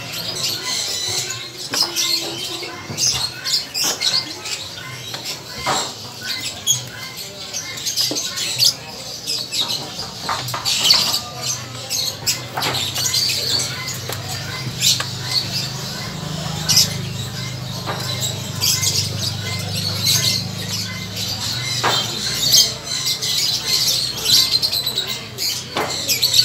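Many small caged birds chirping and twittering continually, with scattered sharp clicks.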